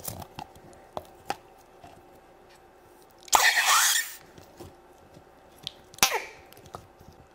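Green noisy putty in a toy toilet pot pressed with a finger, pushing out a fart noise about three seconds in and a shorter one near six seconds. A few small sticky clicks come in the first second or so.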